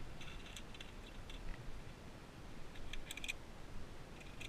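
Via ferrata lanyard carabiners clinking against each other and the steel safety cable, in short jingling bursts near the start and again about three seconds in, over a low steady rumble.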